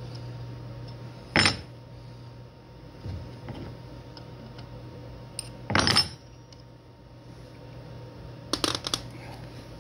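Steel wrenches clinking against a CNC router spindle's collet nut as the router bit is loosened and taken out. There is a sharp metal clink about a second and a half in, another around six seconds, and a quick run of clinks near the end.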